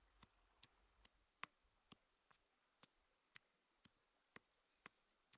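Faint, sharp knocks about twice a second, steady in rhythm: a wooden pestle pounding chilies and garlic in a stone mortar.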